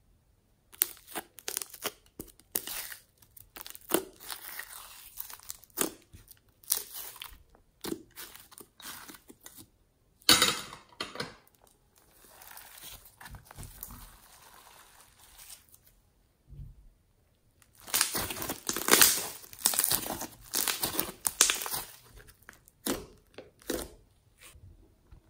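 Hands squishing, pressing and stretching bubbly green slime, with crackling pops of air bubbles and sticky squelches coming in irregular clusters. The sound is quieter in the middle and densest and loudest about three-quarters of the way through.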